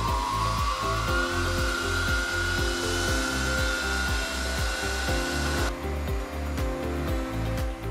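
WEISS VM32L milling machine's DC spindle motor whining as the speed knob is turned up, the pitch rising and then holding steady at about 2,100 rpm before it cuts off suddenly near the end.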